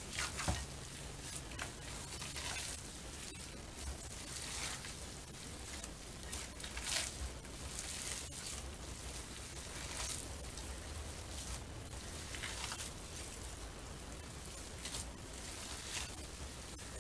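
Hands kneading and squeezing raw ground beef in a glass bowl, faint irregular squishing with an occasional light tick, as curing salt is worked through the meat.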